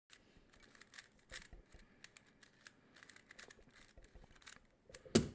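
Fast, irregular plastic clicking and clacking of a magnetic Rubik's speedcube as its layers are turned quickly, with one louder knock near the end.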